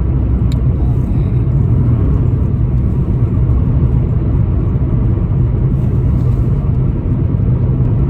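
Steady low rumble of a car driving, road and engine noise heard from inside the cabin, with a single short click about half a second in.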